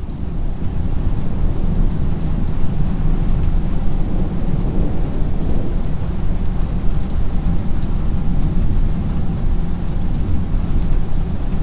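Rain falling steadily over a continuous low rumble of thunder, with scattered drop ticks: a dark storm ambience loop.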